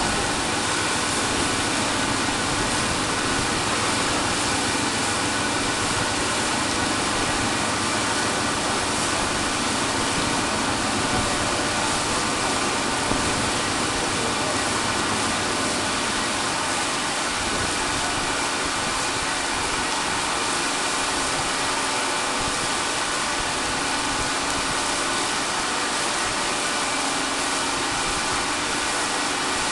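Steady drone of offshore oil rig machinery running, an even hiss with several constant tones that does not change.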